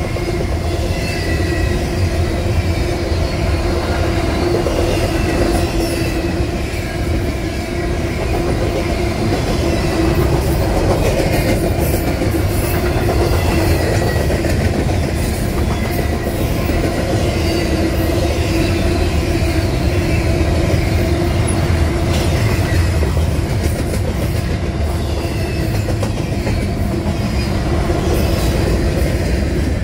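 Double-stack intermodal well cars rolling past at about 50 mph: a steady heavy rumble of steel wheels on rail with clacking and thin, shifting wheel squeals. Near the end the rear distributed-power locomotive, a GE Dash-9-44CW, goes by.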